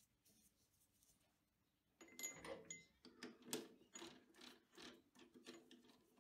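Three-jaw chuck on an Optimum TU 2506V lathe being turned with its chuck key. After a near-silent start, there is metallic clicking and scraping about two seconds in, with a short ring at first, then strokes about twice a second as the jaws are wound in on a stainless steel rod.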